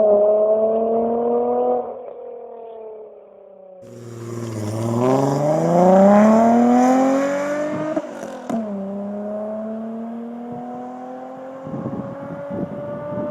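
Volkswagen Golf III VR6 engine through a Magnaflow exhaust, pulling under acceleration. Its note climbs, falls away, then climbs hard to its loudest about six seconds in, drops sharply in pitch near nine seconds like a gear change, and climbs again more gently.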